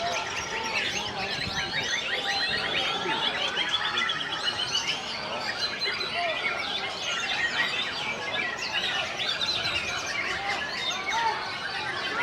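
Many songbirds singing at once: a dense, steady chorus of overlapping chirps, trills and whistles.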